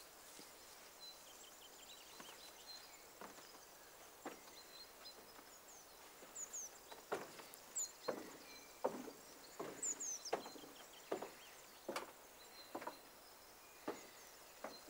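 Footsteps knocking on the wooden stair and floorboards of an old log house, an irregular dull knock every half second or so, loudest about seven to twelve seconds in. Small birds chirp faintly in the background.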